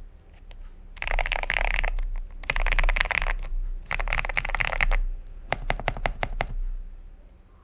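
Lubed Gateron Milky Yellow Pro linear switches on a Xera87 mechanical keyboard being typed on: three quick bursts of rapid keystrokes, then about eight separate key presses, dying away near the end.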